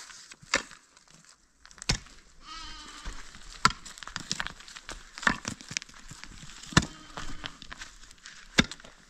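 Pickaxe striking stony soil, about six blows spaced roughly a second and a half apart. An animal bleats a few seconds in.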